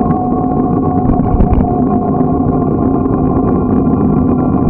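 Bicycle riding along a paved street, heard from a camera mounted on the bike: a loud, steady drone with a constant hum and fast rattling over the road surface.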